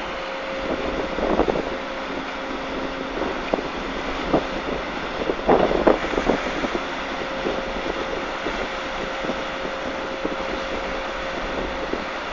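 Wind buffeting the microphone, with stronger gusts about one and a half and six seconds in, over the steady hum of a boat under way.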